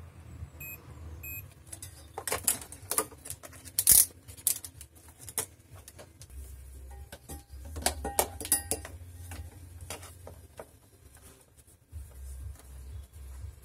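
Two short electronic beeps about a second in, then a run of clicks, taps and hard plastic knocks as cables, multimeter probes and a power supply brick are handled on a desk. The loudest knock comes about four seconds in.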